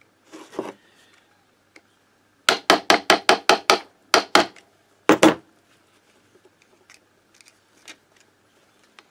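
Hammer tapping on a screwdriver held against a moped engine's clutch: a quick run of about nine sharp metal taps about two and a half seconds in, then a few more in two short groups.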